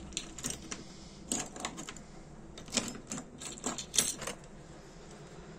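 Light, irregular clicks and taps of small metal lighter parts being handled while a Dunhill Rollagas lighter is put back together, the sharpest click about four seconds in.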